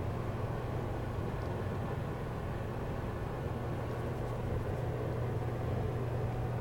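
Steady low hum under a constant hiss of background noise, with no distinct sounds.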